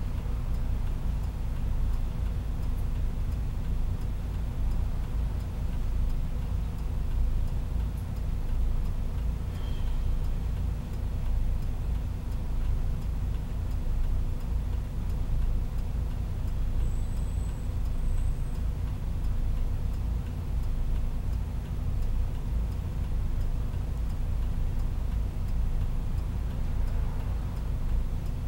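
1995 Hino Rainbow bus's diesel engine idling steadily at a standstill, a low even rumble heard from inside the cabin.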